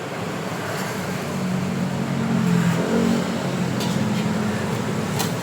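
Steady motor-vehicle engine noise, as from street traffic, with a few sharp clicks about four and five seconds in.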